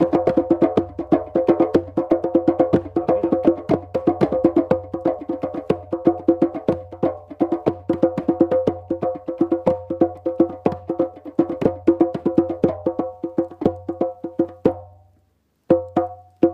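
Djembes played with fast hand strikes in a steady, dense rhythm, stopping about fifteen seconds in, followed by a couple of lone hits.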